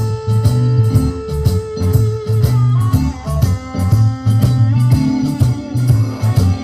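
Blues background music led by guitar, over a repeating bass line with a steady beat.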